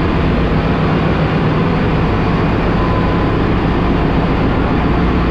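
Loud, steady engine-room noise of a bulk carrier under way: the ship's main diesel engine and auxiliary machinery running, with a deep, even hum.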